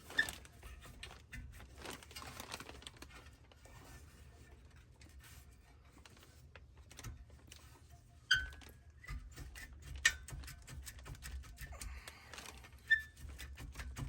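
Metal-on-metal clinks and light scraping as a rear brake caliper is rotated off and handled with tools, with four sharper ringing clinks about a second in, about eight seconds in, about ten seconds in and near the end. A faint steady low hum runs underneath.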